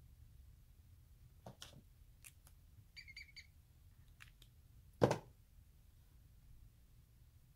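Light clicks and taps of art supplies being handled on a desk, a quick run of about four short high squeaky chirps about three seconds in, and one louder knock on the desktop about five seconds in.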